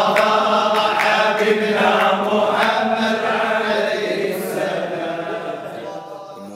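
A group of men chanting a Sufi devotional song (dhikr) together, unaccompanied, with many voices sustaining long notes. The chant fades out near the end.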